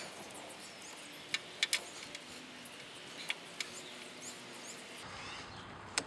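A few faint, sharp clicks of a plastic quick-connect splice connector being worked onto a turn signal wire, against a low hiss. There is a small cluster of clicks about a second and a half in and two more past the middle.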